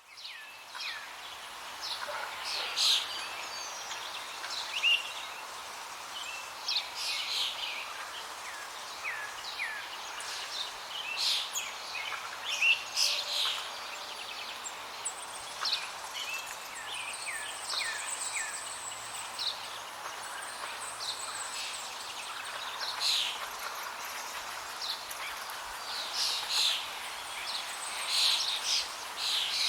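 Many birds chirping and calling over a steady rush of flowing water.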